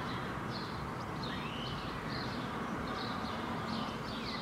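Small birds chirping again and again over a steady outdoor background hiss.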